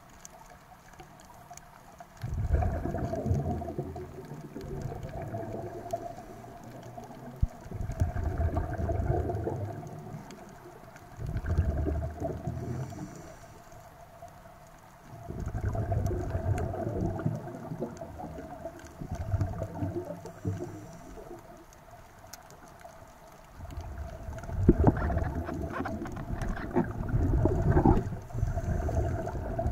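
Scuba diver's exhaled bubbles rumbling and gurgling from the regulator underwater, in about six bursts of two to three seconds, one per breath, with quieter gaps between.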